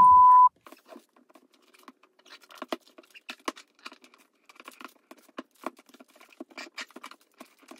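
A steady censor beep cuts off about half a second in, followed by quiet, irregular taps and clicks of hands handling the boxed iPad Pro.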